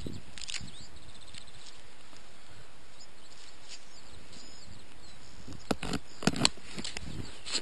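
Steady outdoor hiss on the microphone, with a few sharp rustles and knocks about six seconds in, from handling the collapsed parachute canopy and lines in the grass after landing.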